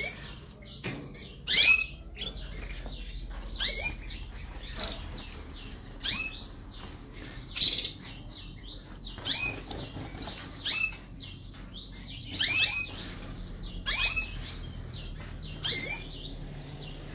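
Canaries in a flight cage calling: short, high chirps about every one and a half to two seconds, each a quick sweep of pitch, with light clicks between them.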